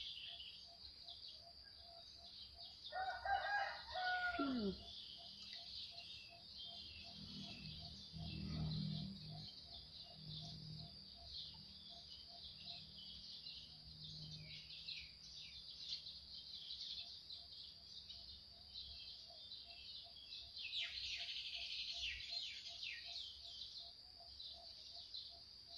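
A rooster crowing once, about three seconds in, a drawn-out call that drops in pitch at the end, over a faint steady high-pitched drone. Small birds chirp near the end.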